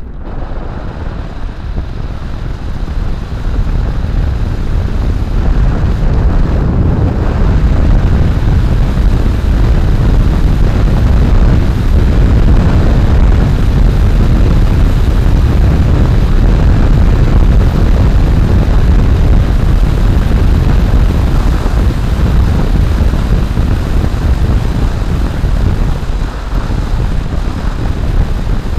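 Heavy wind rush and low rumble on the microphone of a camera mounted on an electric motorcycle riding along a street. It gets louder over the first eight seconds or so, then holds steady.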